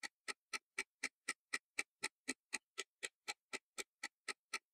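Clock ticking: sharp, even ticks about four times a second, with silence between them.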